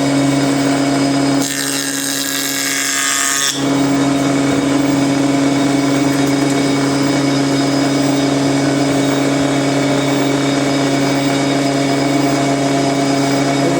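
An electric woodworking power tool running with a steady motor hum. The hiss on top changes about a second and a half in and again about three and a half seconds in.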